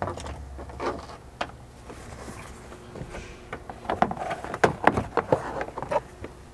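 Grey plastic interior pillar trim panel being worked loose and pulled free, giving a scatter of light plastic clicks and rattles that are busiest from about four to five and a half seconds in.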